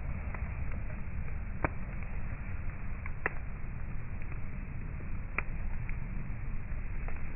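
Wood fire burning in a fire pit, with sharp pops and crackles from the logs, three loud ones a second or two apart, over a steady low rumble.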